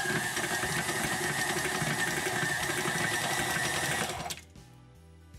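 KitchenAid stand mixer running, its flat beater working thick gingerbread dough in a glass bowl, with a steady motor whine. The mixer is switched off about four seconds in.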